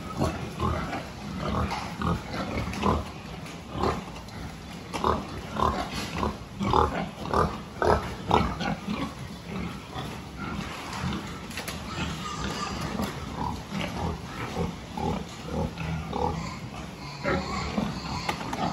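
Pigs grunting in a pen: many short grunts, coming thick and fast in the middle and sparser toward the end.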